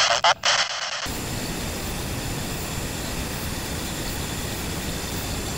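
Handheld radio's speaker hissing static, broken by a few short gaps, which cuts off about a second in. A steady even background hiss and rumble follows.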